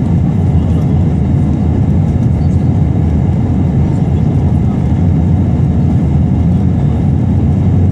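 Steady low rumble inside the cabin of an Airbus A321 climbing after takeoff: engine and airflow noise heard from a seat over the wing.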